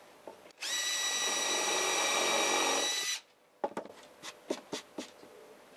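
Makita 18 V cordless drill running at a steady high whine for about two and a half seconds as it bores a hole through a wooden block, then stopping. A few light clicks and knocks follow as the drill is set down and another is picked up.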